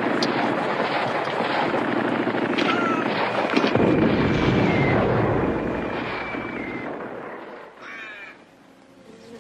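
Battle sound effects: a dense rumble of explosions with sharp gunshots and a few falling whistles, loudest about four seconds in, then fading away. A crow caws near the end.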